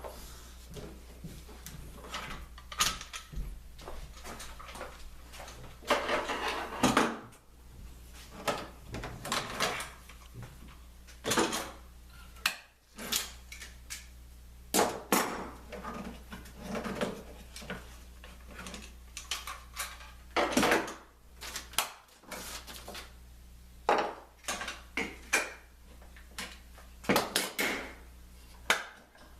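Irregular knocks, clacks and short scrapes of clamps and wooden clamping blocks being loosened, pulled off a glued plywood lamination and set down, over a steady low hum.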